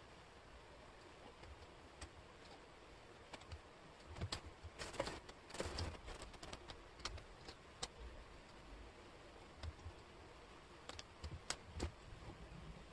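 Wooden jigsaw puzzle pieces clicking and sliding on a tabletop as hands pick them up and fit them: scattered light taps, with a spell of shuffling and scraping about four to six seconds in.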